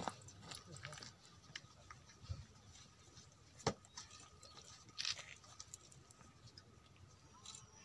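Faint background of a large gathered crowd with scattered small clicks and rustles; a sharp click about three and a half seconds in and a short rustle about five seconds in.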